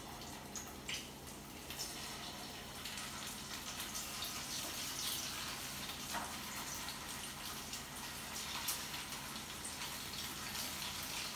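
Rice cutlets sizzling in hot oil in a shallow frying pan as they are set in one by one, the sizzle growing a little louder as more go in.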